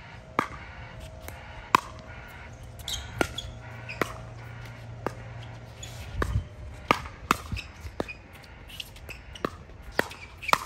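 Pickleball paddles striking the hard plastic ball during a rally, with ball bounces on the court: a string of sharp, irregular pops, roughly one every half second to second and a half.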